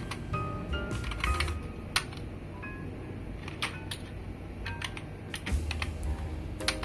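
Typing on a computer keyboard, scattered key clicks, over background music.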